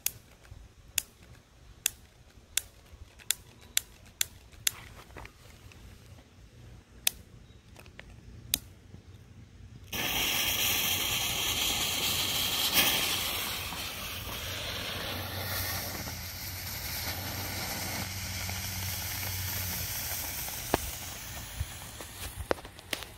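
A utility lighter clicks about ten times while the fuses are lit. About ten seconds in, the M-100 smoke bombs catch, and a sudden, steady, loud hiss of smoke pouring out begins.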